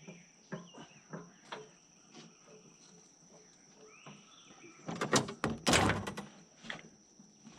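Scattered metallic clicks and knocks of hand work on heavy-equipment parts, with a loud burst of clattering and scraping about five seconds in. A steady, high insect drone runs underneath.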